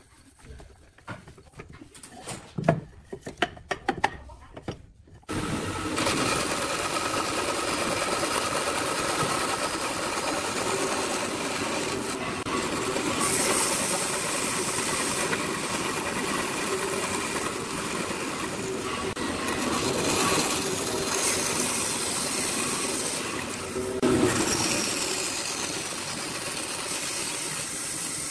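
A few scattered clicks and knocks as timber is handled and clamped at a hollow-chisel mortiser. About five seconds in, these give way to a band saw running steadily as it cuts through a pine board.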